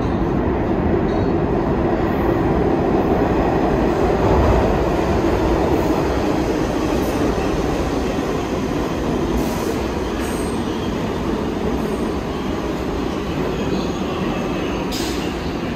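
New York City subway train running on the rails through the station: a steady, loud wheel-and-track noise that swells to its loudest about four seconds in, then slowly eases.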